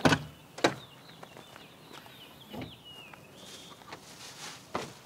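Two sharp clicks near the start as the Jeep Wrangler's rear swing gate and flip-up glass are unlatched, then rustling as things are moved about in the cargo area, with a bird chirping faintly.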